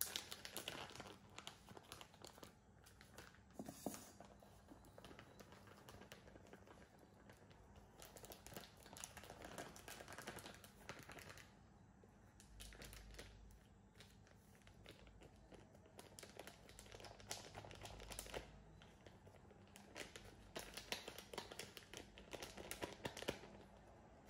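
Faint crinkling and rustling of a bag of okonomiyaki flour being handled, shaken and poured into a stainless steel bowl, coming in several short bursts.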